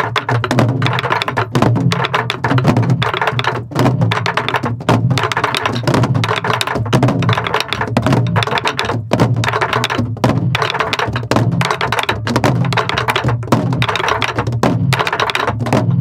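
Several soribuk barrel drums played together in a steady drill rhythm: stick strokes clacking on the drums and low booms from palm strokes on the heads, struck evenly with controlled force.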